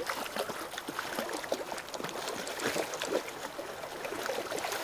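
Shallow river riffle running over rocks, with small splashes from a hooked brown trout being played at the surface.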